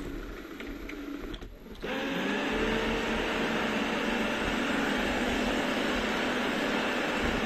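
Robot vacuum cleaner starting a cleaning run: a quieter mechanical whir, then about two seconds in the suction fan spins up with a short rising whine and settles into a steady, loud whir.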